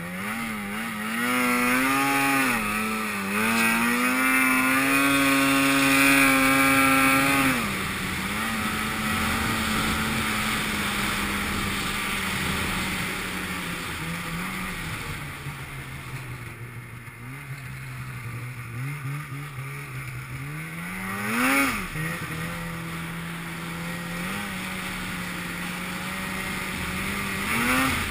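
Two-stroke mountain snowmobile engine held at high, wavering revs for about the first seven seconds, then settling to a steadier, lower note. About three-quarters of the way in, the revs rise and fall once quickly, and they climb again near the end.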